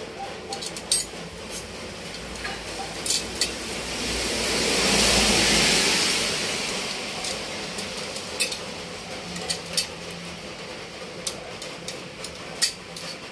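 Steel wire spokes clinking and ticking against a motorcycle wheel hub and chrome rim as they are threaded by hand into the hub holes: scattered light metallic ticks. Around the middle, a broad rushing noise swells for a few seconds and fades.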